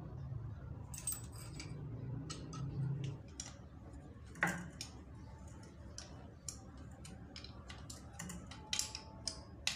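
Small metallic clicks and ticks at irregular intervals as the nuts are refitted and tightened on the end-cover bolts of a monoblock water-pump motor. One sharp click about four and a half seconds in is the loudest, with a quick run of clicks near the end.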